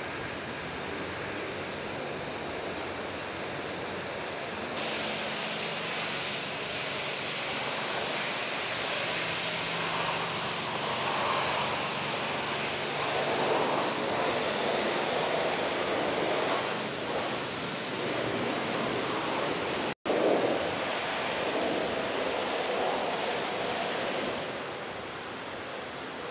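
Steady rushing background noise of a large industrial workshop shed, with no clear single source. It gets louder about five seconds in, cuts out for an instant about twenty seconds in, and falls back near the end.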